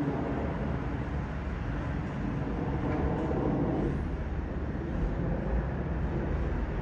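Steady jet noise from a Boeing 777-300ER's two GE90 turbofan engines as the airliner makes a low flyover, a little louder about two to four seconds in.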